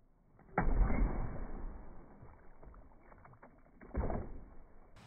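Slowed-down, deep and muffled sound of a sword swing at a plastic water bottle: a sudden loud rush less than a second in that fades away, then a second sharp hit about four seconds in as the blade strikes the bottle and it bursts.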